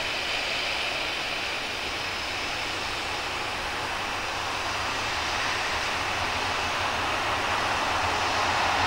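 Jet engines of a Boeing 737-800 running during pushback: a steady rushing noise that slowly grows louder.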